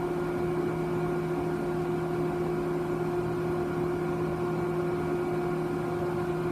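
Steady hum of a Tektronix 2467B oscilloscope's cooling fan running, with a few held tones over a light even whir.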